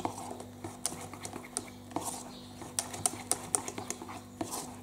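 Whisk beating thick crème pâtissière in a small nonstick saucepan, with butter just added: the wires click and tap quickly and irregularly against the sides and bottom of the pan, over a low steady hum.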